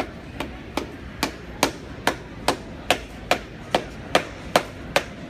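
Farrier's hammer striking steadily on a Belgian draft horse's new steel shoe and hoof, about two and a half blows a second, lighter at first and harder from about a second in.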